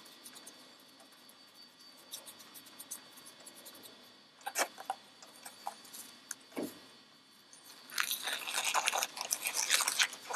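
Nitrile exam gloves rustling and crinkling as they are taken from the box and pulled onto the hands: scattered soft rustles at first, then a denser stretch of crackling near the end.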